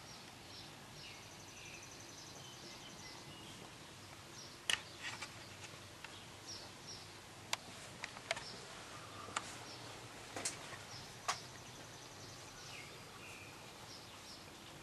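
Birds chirping faintly in the background, with a handful of sharp clicks between about five and eleven seconds in, the first of them the loudest.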